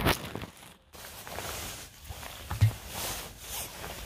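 Footsteps and rustling of leaves and twigs underfoot on a forest floor, irregular, with a heavier thump about two and a half seconds in.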